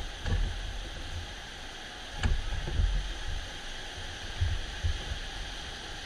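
Steady rush of whitewater rapids, with irregular low thumps and one sharp knock about two seconds in.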